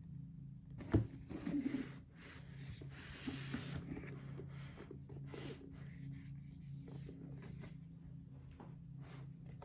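Cardboard box and paper packaging being handled by hand: a sharp knock about a second in, then rubbing and scraping with scattered rustles, over a steady low hum.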